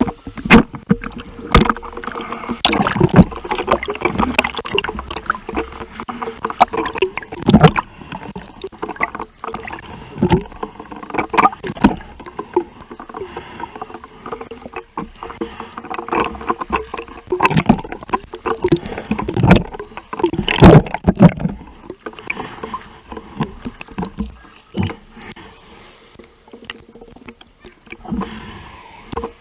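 Sea water splashing and sloshing in irregular bursts close to the microphone, as from someone swimming; the splashing dies down in the last few seconds.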